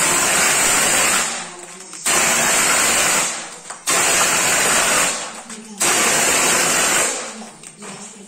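Air-powered plaster hopper gun with a four-hole nozzle plate spraying plaster onto a wall: four loud bursts of hissing, spattering air and plaster, each about a second long, with short pauses between.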